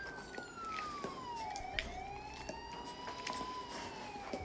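Dog whining in one long high tone that slides down in pitch, then rises and falls again, begging for a strip of bacon held above its nose.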